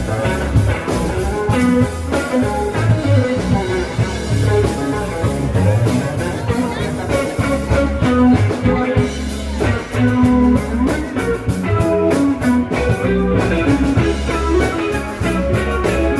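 Live rock band playing an instrumental passage, with a drum kit and guitar over a strong bass line.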